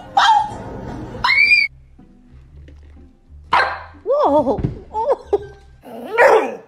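Dogs howling and whining in several separate, wavering pitched calls. One rising howl comes about a second in, then a run of arching howls in the middle, and a short call near the end.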